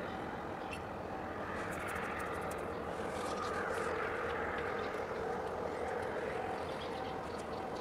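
Steady, continuous distant engine-like rumble and waterfront background noise, with faint short chirps and ticks over it.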